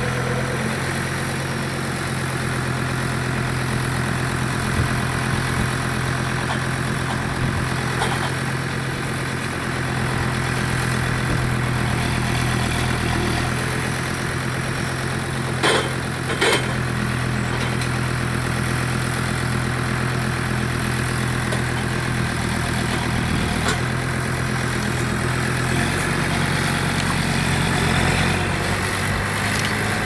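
Kubota tractor's diesel engine running steadily while its front loader handles large square straw bales, the engine note shifting a couple of times. Two sharp knocks come a little past halfway.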